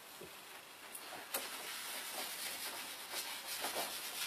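Whiteboard being wiped clean: a faint, soft rubbing across the board's surface, with one small tick about a second and a half in.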